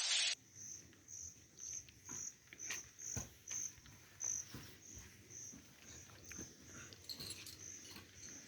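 A loud hiss cuts off a moment in. Then steady high-pitched insect chirping follows, about two to three chirps a second, with irregular soft knocks and rustles underneath.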